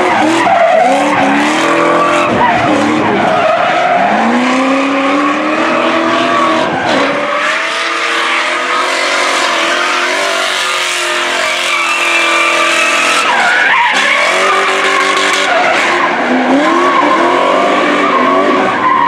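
BMW E30 drift car sliding sideways. Its engine is revving hard, the pitch rising and falling over and over, over a continuous screech of spinning, smoking rear tyres.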